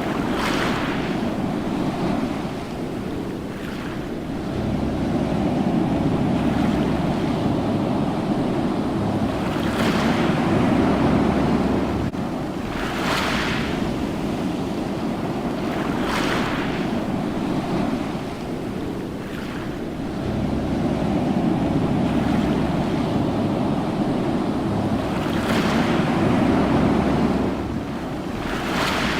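Ocean surf: a continuous rumbling wash of waves that swells and eases, with a breaking wave hissing in about six times.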